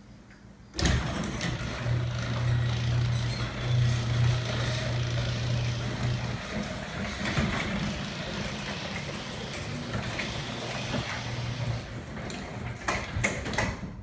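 LiftMaster garage door opener starting abruptly about a second in and running for about twelve seconds with a steady low motor hum as it drives the big garage door along its rail. A few clunks near the end as the door reaches its stop and the motor shuts off.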